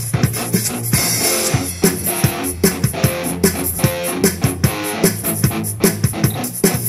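Band music: guitar over bass and a drum kit keeping a steady beat.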